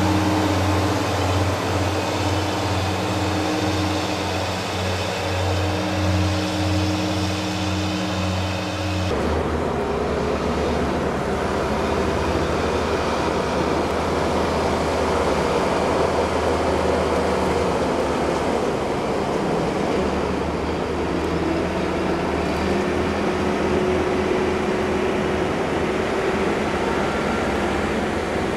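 Engine of a large SMV cab-and-trailer carrier vehicle running as it drives slowly. It is a steady hum at first, then changes abruptly about nine seconds in to a rougher, noisier rumble as the vehicle turns.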